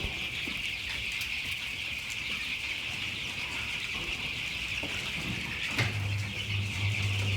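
A large flock of chickens calling and clucking, a dense continuous chatter. About six seconds in, a low steady hum comes in under it.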